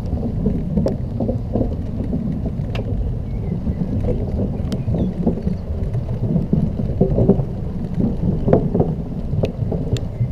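Steady low rumble of wind and ride vibration picked up by a GoPro Hero4 on a moving Xiaomi M365 electric scooter, with a few sharp ticks scattered through.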